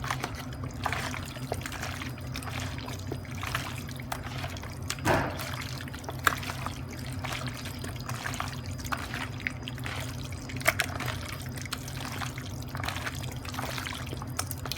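Diced lamb being mixed by hand through a wet, oily marinade in a bowl: irregular squelching and sloshing, with a louder squelch about five seconds in.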